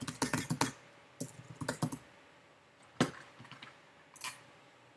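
Typing on a computer keyboard: a file name keyed in two quick runs of keystrokes, then one sharper click about three seconds in and a fainter one a little after four seconds.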